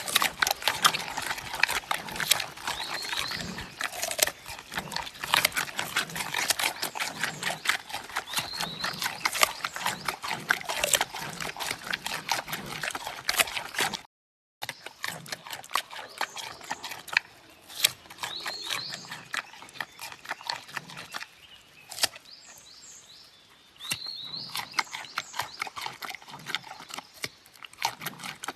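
Giant panda crunching and chewing bamboo: a dense run of sharp cracks and splintering snaps as the stalks are bitten and ground. There is a short silent break about halfway through and a quieter spell near the end.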